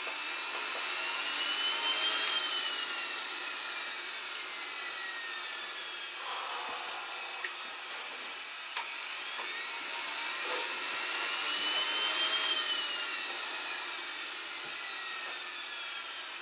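JetCat P120 model jet turbine running on a test stand: a high whine over a rush of air. Twice it spools up, its pitch rising over about two seconds, then winds slowly back down.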